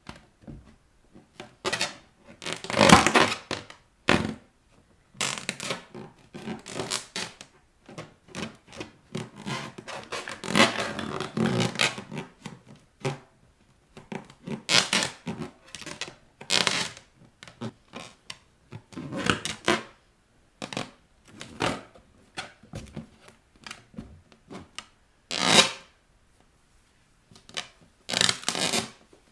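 Rubber balloons rubbing and squeaking under bare feet, in irregular bursts of scraping noise with a few louder, sharper moments.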